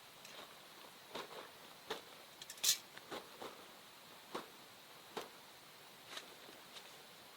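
Wood campfire crackling: irregular sharp pops and snaps about once a second, one louder pop near the middle, over a faint steady hiss.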